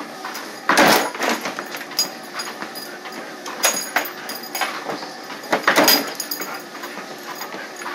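Treadmill in use: knocking and clattering on the deck and belt, with louder clatters about a second in, near the middle and about six seconds in.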